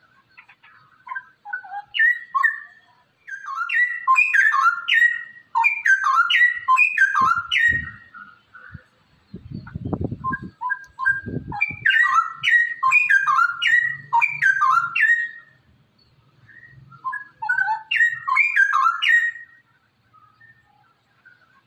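Straw-headed bulbul (cucak rowo) singing in three bursts of rapid, rising and falling notes, with short pauses between. A few low thuds come in about halfway through.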